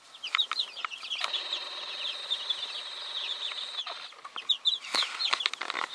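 Baby chicks peeping: many short, high, falling peeps, thickening into a continuous chorus for a few seconds in the middle. A few sharp clicks near the end.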